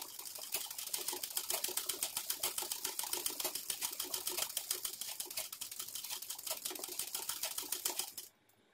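Domestic sewing machine stitching free-motion embroidery: a fast, even clatter of the needle going up and down, which stops abruptly near the end.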